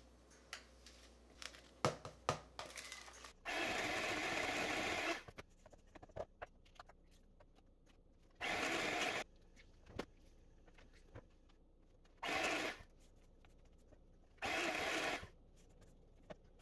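A spoon or spatula clinking and scraping against a stainless steel mixing bowl while stirring thick buttercream. Light taps come first, then four short, louder scraping passes spread through the rest.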